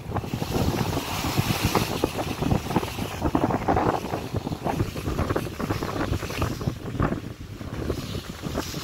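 Wind buffeting the microphone in irregular gusts on the open deck of a moving passenger ferry, over the rush of water along the hull.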